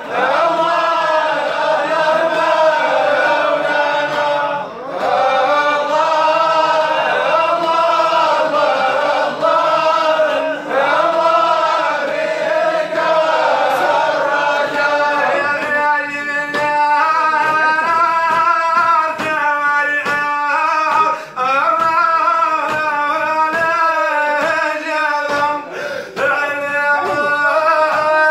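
Male chanting of a Sufi devotional song, a long wavering melody sung in phrases with short breaths between them.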